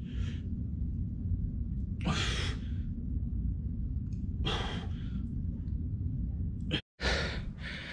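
A man's hard, breathy exhalations, one about every two seconds, as he strains through a set of push-ups. A steady low rumble runs underneath, and the sound drops out for an instant near the end.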